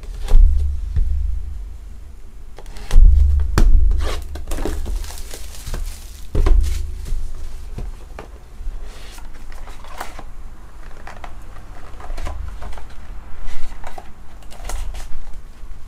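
Plastic shrink wrap being slit with a small cutter and torn off a cardboard trading-card hobby box, crinkling, with several dull thumps as the box is handled. The loudest thumps come about three seconds in.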